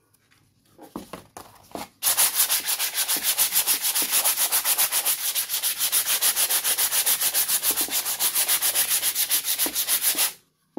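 Sheet of 150-grit silicon carbide sandpaper rubbed by hand over a small stretched canvas in fast back-and-forth strokes, several a second, starting about two seconds in and stopping abruptly near the end: smoothing the canvas surface before it is primed. A few light handling rustles come before it.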